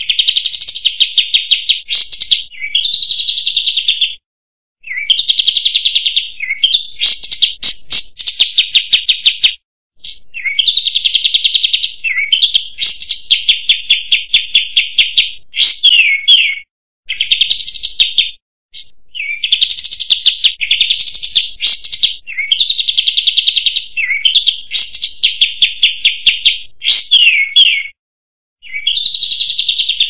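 Olive-winged bulbul (kapas tembak) singing: a long series of fast, high-pitched chattering trills, each phrase one to two seconds long, broken by brief pauses, some ending in quick sweeping notes.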